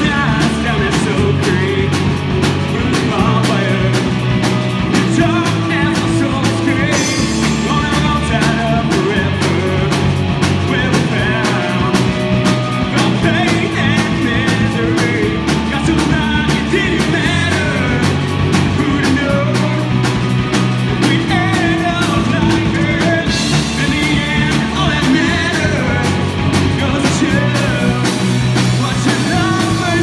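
Live rock band playing in the room: distorted electric guitar, electric bass and drum kit keep a steady driving beat, with a male lead vocal sung over it.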